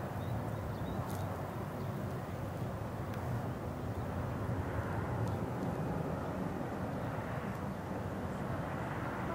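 Boeing 747SP's four jet engines heard from the ground as the airliner climbs out after takeoff: a steady, distant low rumble.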